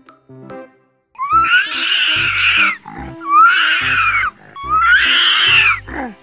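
Monkey screaming: three loud, shrill calls, each rising then falling in pitch, with a short falling call near the end. Children's background music with a steady bass beat plays underneath.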